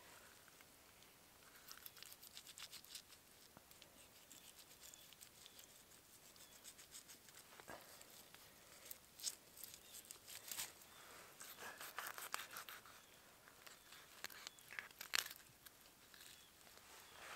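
Fillet knife slicing and scraping through a fish's skin and flesh as it is filleted: faint small cutting, tearing and scraping sounds, busier in the middle, with one sharper click near the end.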